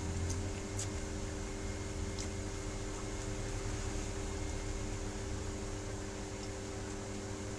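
Steady electrical hum with several low tones over an even hiss, with a few faint clicks in the first couple of seconds.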